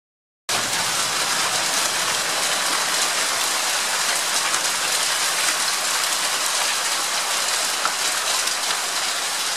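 Hail falling steadily, a dense even hiss of many small pellets striking hard surfaces. It starts abruptly about half a second in.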